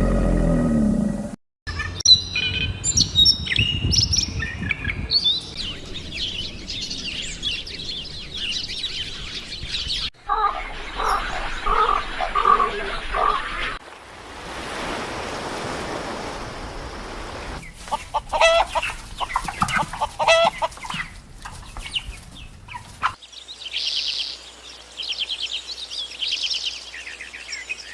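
A string of separate animal-call recordings joined by abrupt cuts, mostly birds chirping and fowl clucking, with a fast high trill in the last few seconds.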